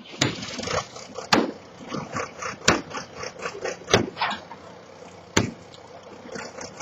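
Five heavy blows struck at a steady pace, about one every second and a quarter, with smaller knocks and rattling between them.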